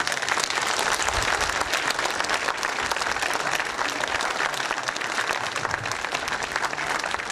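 A crowd applauding, many hands clapping at once; it starts suddenly and holds steady.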